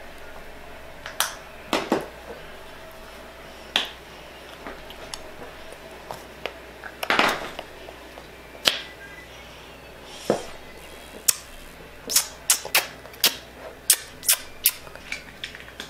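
A small child's lips smacking and popping as she works in freshly applied lipstick: scattered sharp smacks, coming fast and close together over the last few seconds.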